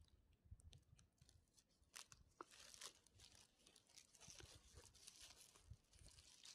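Near silence, broken by faint scattered rustles and clicks.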